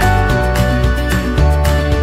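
Background music with a steady beat, sustained melodic notes and a bass line.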